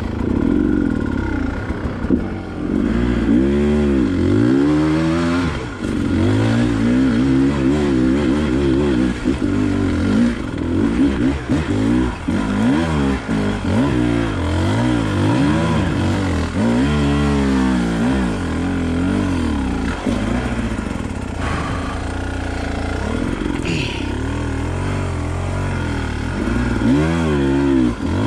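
Enduro dirt bike engine revving up and falling back over and over as the throttle is worked, steadier for a while in the second half, with a few sharp knocks.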